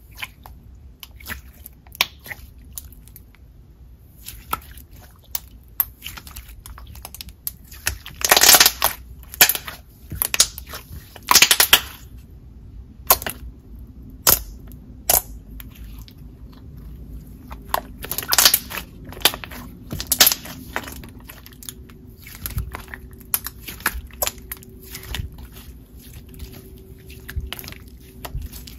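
Thick, chewy putty-like slime being squeezed, pressed flat and stretched by hand, making many small sticky clicks and pops. A few louder, longer crackly bursts come about a third of the way in and again past the middle.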